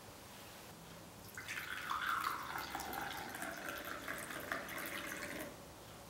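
Tea poured from a ceramic teapot into a china cup: a steady splashing stream that starts about a second and a half in and stops cleanly about four seconds later.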